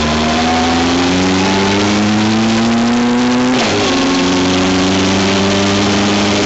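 Vehicle engine accelerating, its pitch rising steadily until a gear change about three and a half seconds in drops it suddenly, after which it pulls up again. Steady wind and road noise run underneath.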